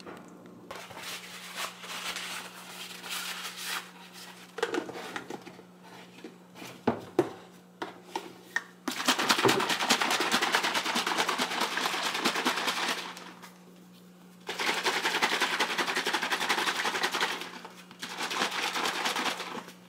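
Puppy milk formula being shaken hard in a shaker cup: three spells of rapid rattling and sloshing with short pauses between, the first starting about nine seconds in. Before that come lighter knocks and clatter as the containers are handled.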